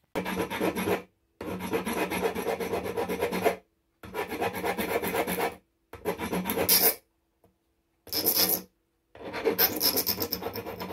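Hand file rasping around the stainless-steel rim of a Dallas iButton Thermochron datalogger's can, filing off the clip-in rim so the top of the case comes off. Quick scraping strokes come in six bouts with short pauses between them.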